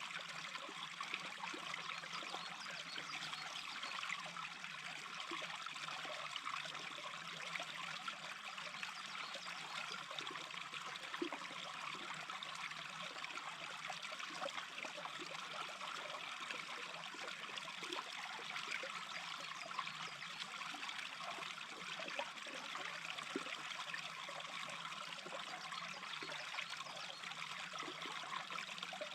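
Small stream babbling steadily, with a continuous trickling rush and small splashy ticks.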